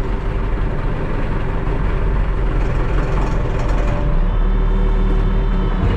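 Diesel engine of a Terex TLB-815 backhoe loader running steadily while working. A steady higher tone joins in about four seconds in.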